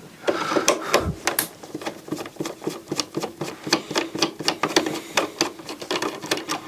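Irregular quick clicks, taps and light scraping from hands and a tool working at small parts inside a stereo receiver during disassembly.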